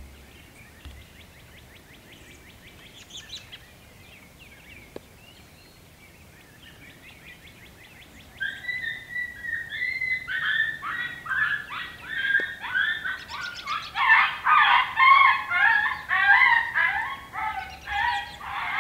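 Faint bird chirps, then about eight seconds in a loud chorus of many overlapping animal calls breaks out and grows louder, made of quick, repeated rising-and-falling notes.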